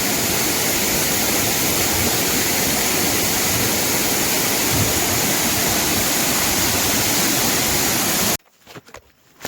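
Waterfall pouring into its plunge pool: a steady, loud rush of water that cuts off abruptly about eight seconds in, leaving a much quieter stretch with a few faint knocks.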